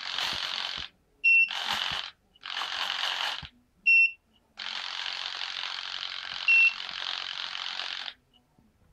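Electric flap servos of an FMS Stuka RC model whirring as the flaps are run by a transmitter switch, in four runs from about half a second to three and a half seconds long. Short high beeps, typical of a transmitter confirming a switch change, sound three times between and during the runs.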